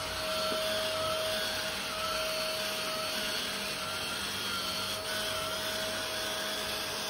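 Hitachi Karupack Stick PKV-BK3K cordless stick vacuum running in standard mode as its floor head is pushed back and forth over carpet: a steady whine over a rush of suction, with a higher tone that wavers up and down.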